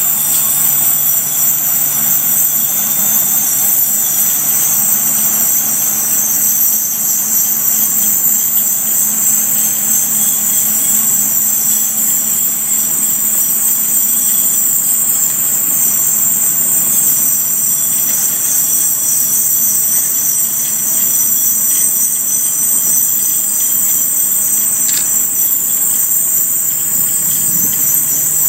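Ribbon-rail work train creeping ahead while unloading continuous welded rail: a steady diesel engine hum under the noise of steel rail dragging off the cars onto the ties.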